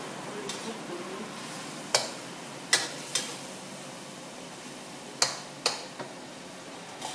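Chicken being stir-fried in a wok with a steady low sizzle, and a metal spatula clanking sharply against the pan about six times at uneven intervals.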